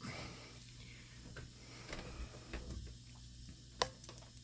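Lock pick rake working the pin stack of a Brinks padlock against tension: faint, scattered metallic clicks and ticks, with one sharper click near the end.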